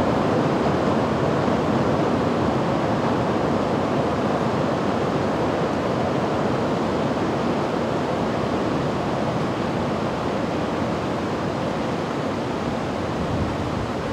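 Steady rushing noise of the Kurobe River below the bridge, with the rumble of the Kurobe Gorge Railway trolley train on the steel bridge slowly fading as the train pulls away into the tunnel.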